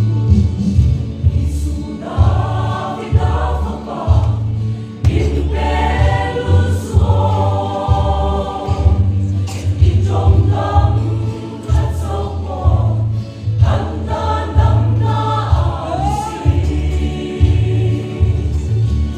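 Church choir singing a gospel song with band accompaniment and a loud, pulsing bass line; the voices come in about two seconds in.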